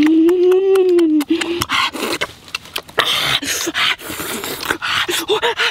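A man's drawn-out vocal hum, then loud breathy panting, smacking and slurping from eating a roasted turtle by hand.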